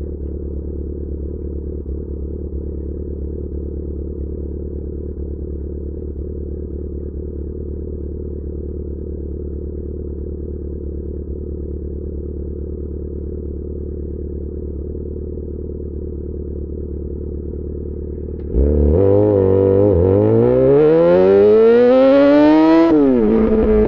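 Yamaha XJ6 S inline-four engine through an SC-Project exhaust idling steadily, then opening up sharply about three-quarters of the way through, its pitch rising under acceleration and dropping once at a gear change near the end.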